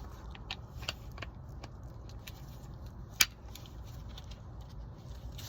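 Light, irregular metal clicks and clinks of hand tools being handled, with one sharper click about three seconds in, over a low steady hum.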